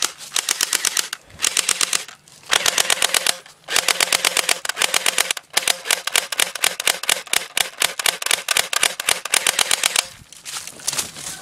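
Electric airsoft M4 rifle firing on full auto in several bursts of rapid, evenly spaced shots, about ten a second, the last burst the longest at about four and a half seconds. The rifle is fired with no BBs loaded, only to scare the other team.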